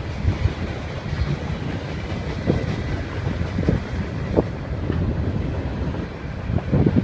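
Mixed freight train's cars rolling past: a steady low rumble of wheels on rail with scattered clacks from the wheels every second or so.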